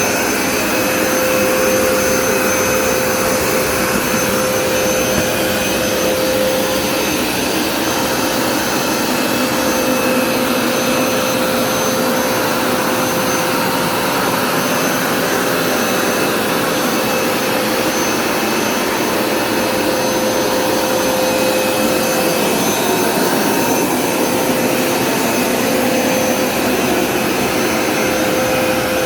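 Hoover Smartwash Pet Complete carpet cleaner running steadily, its motor giving a constant whine over the rush of suction.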